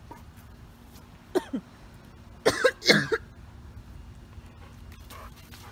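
A person coughing and clearing their throat: two short coughs about a second and a half in, then a louder cluster of coughs near three seconds, brought on by an irritation in the throat.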